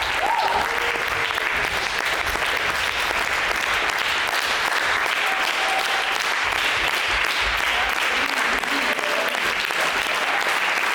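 An audience applauding steadily, a dense continuous clapping.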